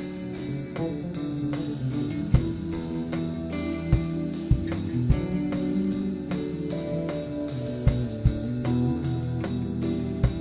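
Live blues-rock band playing an instrumental passage: electric bass and guitar lines over a drum kit, with sharp kick and snare hits every second or so.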